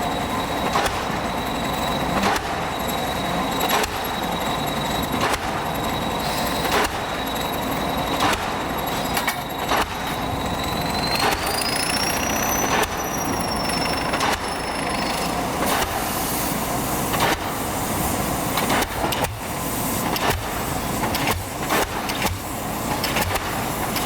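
Pile hammer on an excavator-mounted pile driver striking a pile in an even rhythm, about one blow every one and a half seconds, over the steady running of the machine. A thin high whine rises and falls about halfway through.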